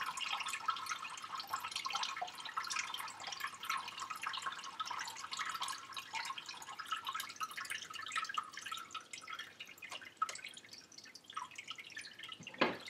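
Chicken stock trickling and dripping through a kitchen-towel-lined plastic colander into a stainless steel bowl of stock, a steady patter of drops that thins out after about ten seconds as the cloth drains. A short knock near the end.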